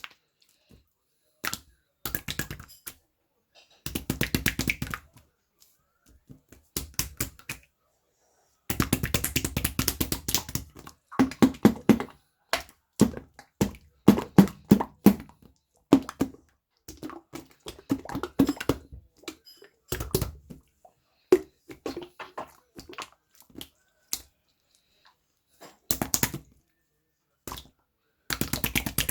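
Hands squeezing and kneading a squishy toy, giving bursts of dense crackly clicking that stop and start, with short silent pauses between handfuls.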